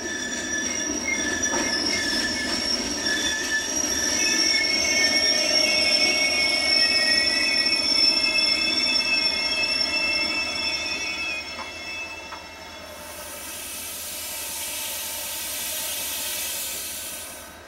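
Passenger train's wheels and brakes squealing in several steady high tones as it slows into a station, fading out about twelve seconds in. A steady hiss of steam venting from under the stopped cars follows.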